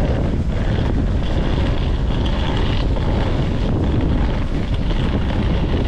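Wind buffeting the camera microphone: a steady, low rumbling noise.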